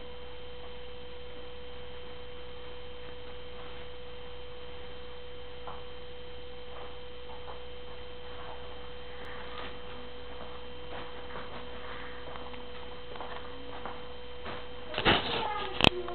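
A steady electrical hum, one unchanging pitch, with faint scattered rustles and clicks over it; a few loud, sharp knocks near the end.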